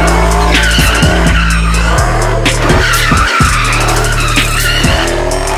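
Car tyres squealing in a wavering screech as cars spin donuts, mixed with music that has a deep bass line and a fast, steady beat.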